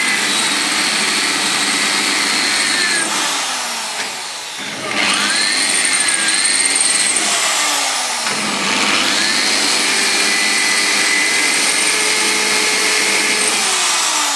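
Corded electric drill running at high speed, boring through the steel sill panel of a car into the reinforcement behind it. Its whine drops in pitch and comes back up twice, about four seconds in and again past eight seconds.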